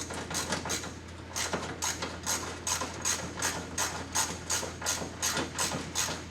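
Hand ratchet wrench being worked in quick, even strokes, its pawl clicking about two and a half times a second, while turning a fastener.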